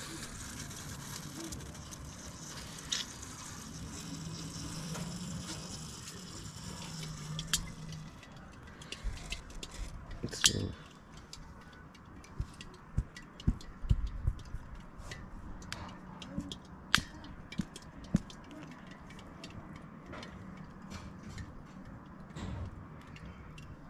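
A hot aluminium pot over a fire, hissing steadily. About eight seconds in it starts to crackle and spit with many sharp pops as cooking oil is poured in and sizzles on the hot metal.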